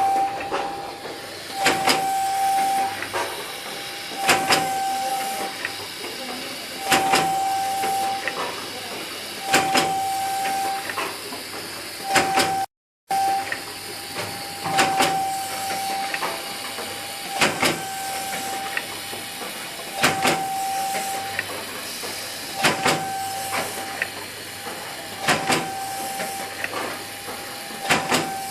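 Soap packaging and labelling machine running through repeated cycles. About every two and a half seconds the mechanism gives sharp clacks and a short, steady, high whistling tone, over a continuous hiss.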